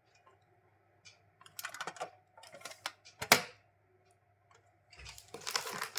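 A small box holding a pencil-and-eraser kit being handled and opened: light clicks and taps in short clusters, one sharp click a little after the middle, then a rustle near the end.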